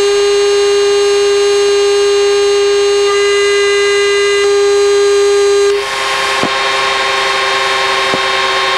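Steady cockpit noise inside a Dassault Mirage III jet in flight: a loud, unchanging hum-like tone with many higher overtones over a background rush. About six seconds in, the tone steps to a new pitch, the level dips slightly, and a brighter hiss of air noise rises.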